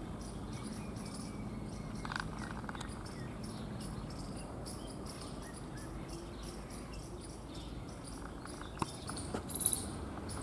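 Insects chirping in a steady run of short high-pitched pulses, about three a second, with a brief louder high-pitched sound near the end.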